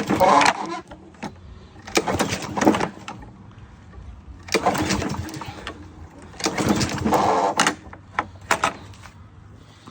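Toro Recycler walk-behind lawn mower being pull-started: four pulls of the recoil starter, each about a second of the engine turning over, without it catching. The mower has just been fuelled after being stored bone dry, and it won't start.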